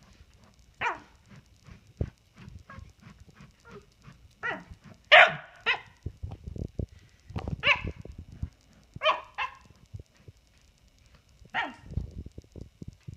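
Corgi giving short, sharp, frustrated barks about eight times, some in quick pairs, the loudest about five seconds in. Between the barks its paws scratch and scuff at a plush dog bed as it digs.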